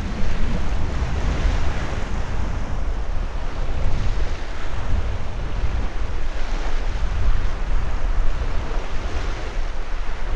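Strong wind buffeting the microphone with a steady low rumble, over small waves washing onto a sand-and-pebble shore.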